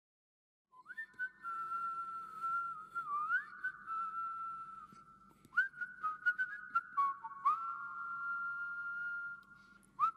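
A whistled tune starting about a second in: one clear note at a time, held and then sliding up or down to the next, with light clicks here and there.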